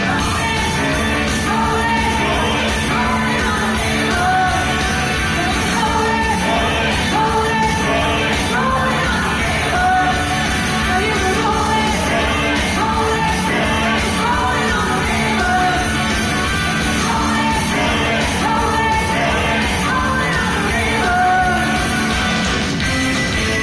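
A choir singing a 1970s pop-rock song live with a rock band accompanying.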